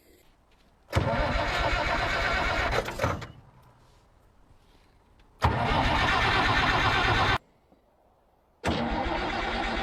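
TD9 bulldozer's diesel engine being turned over by its starter in three bursts of cranking, about two seconds each, with pauses between. It does not catch: it is not getting fuel yet, which the mechanic puts down to a likely airlock in the injector lines.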